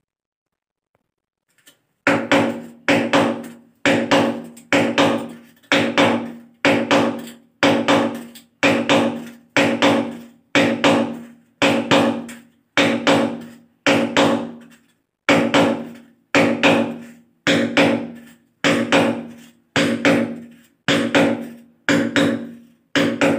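Hammer striking the handle of a screwdriver held against a ceramic wall tile, chiselling a hole for a wall plug without a drill. Even blows about once a second, each a sharp knock with a short ringing tail, starting about two seconds in.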